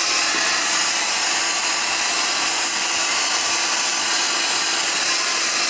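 Heat gun blowing at a steady level with a faint hum, as used to shrink heat-shrink tubing over a cable joint.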